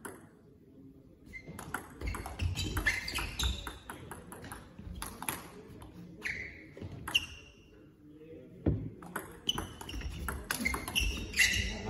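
Table tennis ball clicking sharply off paddles and table in a rally, starting about a second and a half in, with short high squeaks among the hits. There is a brief lull just past the middle, then the hits resume.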